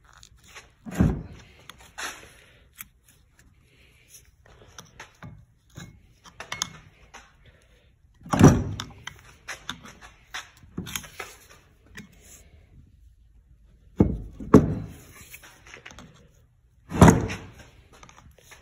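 Steel tool driven against a heated seal wear ring on a Case 580K front axle knuckle to work it loose: a series of sharp metal knocks, the loudest about a second in, around eight seconds, twice near fourteen seconds and at seventeen seconds, with lighter taps and scraping between.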